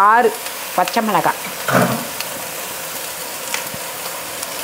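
Cauliflower and green chillies frying in hot oil in a wok: a steady sizzling hiss.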